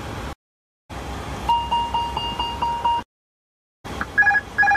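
ATR 72-600 cockpit aural alerts. First comes a run of quick repeated electronic chime tones lasting about two seconds, the master caution alert. After a short gap, three quick two-tone beeps come near the end, the autopilot alert.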